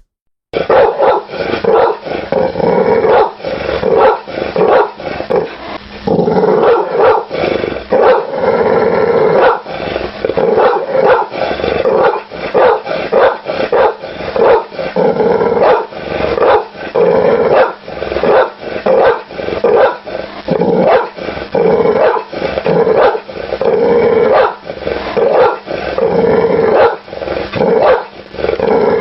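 A dog barking rapidly and continuously, bark after bark with hardly a pause.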